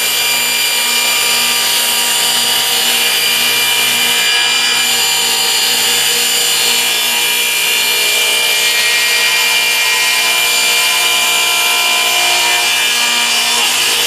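Table saw running steadily, its blade cutting up through the wooden base of a crosscut sled.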